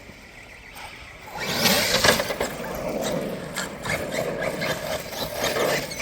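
Electric RC car driving hard over rough ground, starting about a second and a half in: a loud, noisy run of tyre and chassis sound with many small clicks and knocks.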